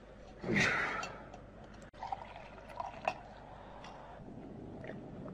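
Water poured briefly into a drinking vessel, followed by a few light clicks and knocks.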